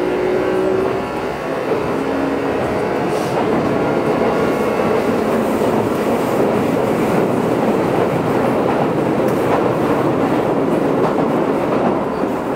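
Keio 8000 series electric train heard from inside the car, above its Hitachi GTO-VVVF inverter. The inverter's pitched magnetic whine fades out about a second in, leaving steady wheel-on-rail running noise with a few faint rail-joint clicks.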